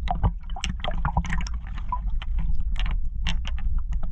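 Lake water sloshing and splashing around a camera held at the surface, with many quick drips and small splashes over a steady low rumble.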